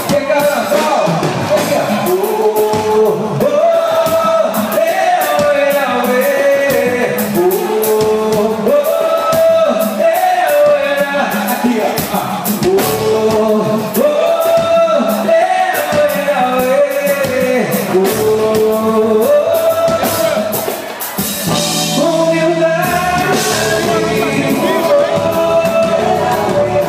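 Live band music with a man singing the melody in held, stepping notes. About three-quarters of the way through, the music dips briefly and a new section with a heavier low backing begins.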